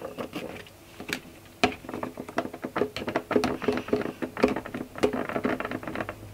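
Fingertips and nails tapping and brushing over the cardboard doors of an advent calendar box. A few light taps give way, about two seconds in, to a quicker run of small taps and clicks.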